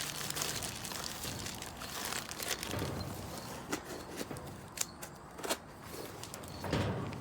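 Scattered clicks, taps and rustling from handling the gravity-feed sandblast gun and a cup of aluminum oxide blast grit, with a fading hiss at the start.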